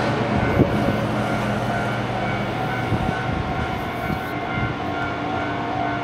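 Steady drone of heavy diesel truck engines running on the haul road, with a few steady tones held above it.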